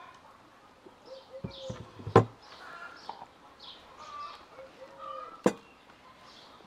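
Small birds chirping repeatedly in the background, with two sharp knocks about three seconds apart, the first a little after two seconds in, that stand out loudest.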